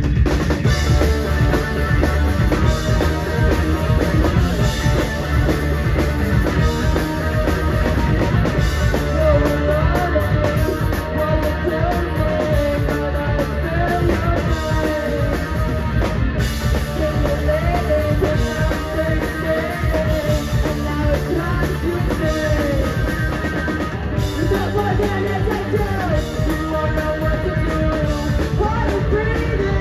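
Punk rock band playing live: electric guitars, bass and a drum kit, with a woman singing over them, heard from among the audience.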